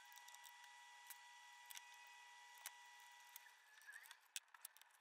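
Near silence: a faint steady high whine that stops about three and a half seconds in, with a few faint scattered clicks.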